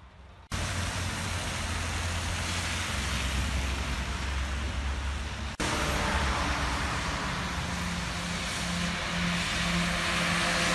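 Wet-road traffic in rain: a steady hiss of rain and tyres on soaked asphalt over a low engine hum. After a cut about halfway through, a lorry approaches, and its engine note grows louder toward the end.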